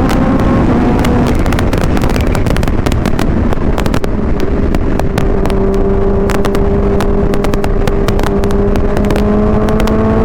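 Supercharged Kawasaki Ninja H2 inline-four with a Vandemon exhaust running under way. Its pitch falls at first, holds steady, then rises again near the end. Heavy wind noise buffets the microphone, and sharp crackles run throughout.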